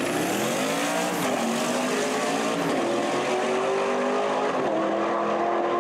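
An engine running at high revs, its pitch climbing over the first second, dipping, then holding steady and rising again near the end.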